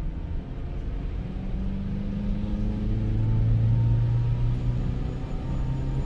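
2006 Subaru Forester's EJ25 flat-four engine pulling under load, heard from inside the cabin over road noise; the engine note strengthens about two seconds in and eases off near the end. With the new ignition coil pack it runs without the old misfiring, only an occasional misfire left.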